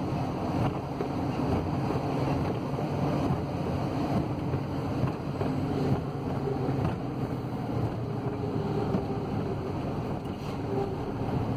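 Ford Transit van's diesel engine and road noise heard from inside the cab while driving: a steady drone with some wind noise.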